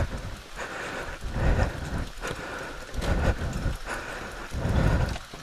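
Rain and wind noise on a motorcycle camera's microphone during a ride in heavy rain, with a low rumble that swells and fades three times.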